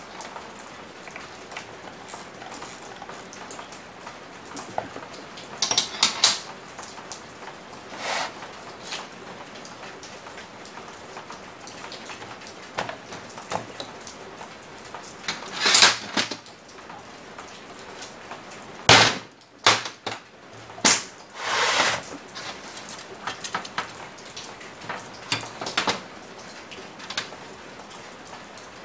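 Metal hand tools and pump parts clicking, knocking and scraping on a workbench as a small electric water pump is reassembled, over a steady background hiss. The knocks are scattered, with a few louder ones in the second half.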